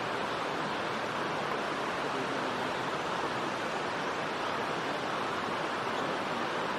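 Steady rushing noise of flowing water, even and unbroken, with no bird calls standing out.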